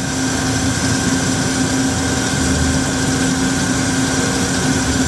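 Hyd-Mech H-14A horizontal bandsaw's blade drive running the band at about 250 feet per minute during a cut: a steady hum with a faint higher whine.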